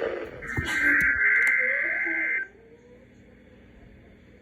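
Emergency Alert System digital data burst heard off a radio receiver: a harsh, buzzing screech of about two seconds starting about half a second in, sent as the coded header ahead of a new alert. It cuts off sharply and leaves faint radio hiss.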